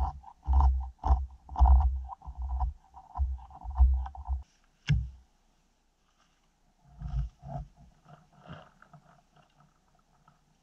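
A fire axe strikes a frozen spruce log once, a sharp chop about five seconds in. Before it come loud low rumbling bursts on the microphone, and softer rumbles and small knocks follow as the axe is worked in the wood.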